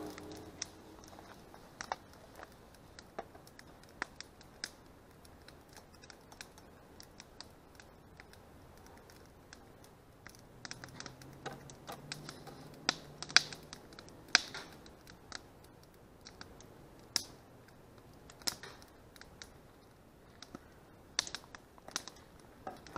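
Small wood campfire crackling: scattered sharp snaps at irregular intervals, a few louder ones about halfway through and again near the end.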